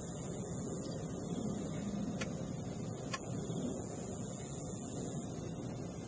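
Steady low background rumble with a high hiss over it, broken by two short sharp clicks about two and three seconds in.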